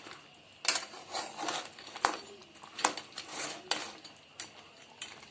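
Spoon stirring crab pieces in thick gravy in a pot, scraping along it with about four sharp knocks against the pot.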